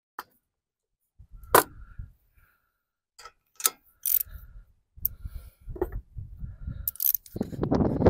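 Ratchet and spark plug socket removing the old spark plug from a Craftsman riding mower's engine: scattered sharp metallic clicks and knocks of the tools, with short low rumbles of handling noise that grow louder and denser near the end.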